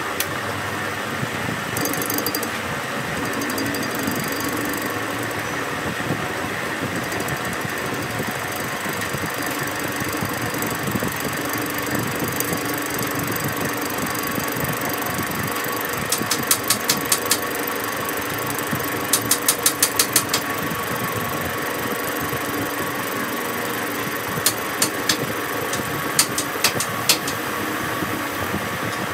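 Metal lathe running with a cutting tool facing a spinning steel part: a steady machine hum and cutting noise. Short bursts of rapid clicking come about halfway through and again near the end.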